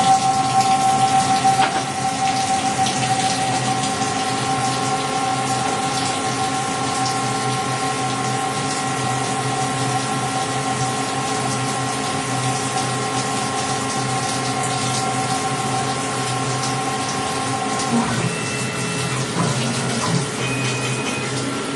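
Emco Turn 220 CNC lathe running, with a steady whine of several tones over a rushing hiss. The whine cuts off about 18 seconds in, and a few short higher tones follow.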